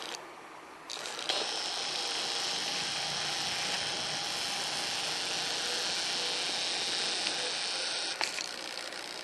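Sony Cyber-shot DSC-HX7V's lens zoom motor and image-stabiliser mechanism whirring, picked up loudly by its own built-in microphone with the mic hole blocked by a finger. The steady whir starts about a second in and stops with a click near the end.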